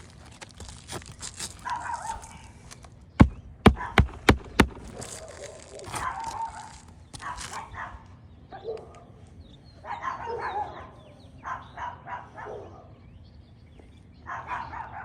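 A hammer drives roofing nails into asphalt shingles by hand: five sharp strikes in quick succession, about three a second, a few seconds in.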